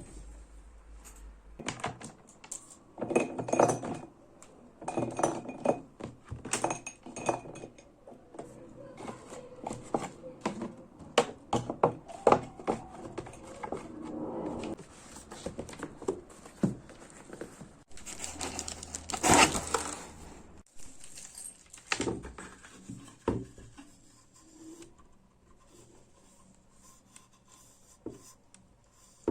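Small hard objects being handled and set down on a desk: irregular clicks, taps and light clatter with some rustling between, and a louder clatter about 19 seconds in.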